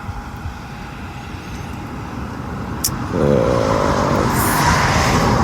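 A motor vehicle on the road approaching and growing louder, its engine note rising clearly out of the background about three seconds in.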